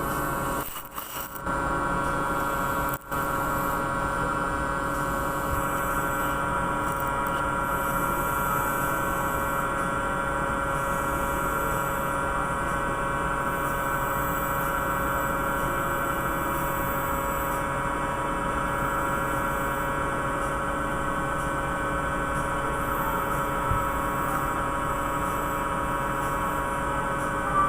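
Steady machinery drone holding several fixed tones, unchanging in pitch and level. It cuts out briefly twice in the first few seconds.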